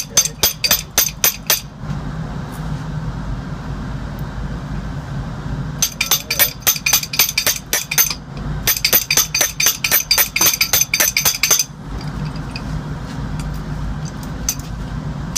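Rapid metallic tapping or clicking of a steel hand tool on a Copeland compressor's head, about six strikes a second, in three bursts with short pauses between them. A steady low hum runs underneath.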